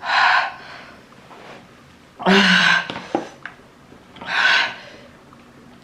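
A woman lets out three harsh, forceful breaths, each about half a second long and about two seconds apart. They are her reaction to the burn of extremely spicy noodles.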